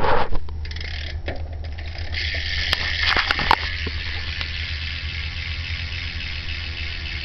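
BMX rear hub ticking rapidly as the back wheel spins freely, the pawls ratcheting in a steady high buzz that starts about two seconds in, after a few handling knocks. A steady low hum runs underneath.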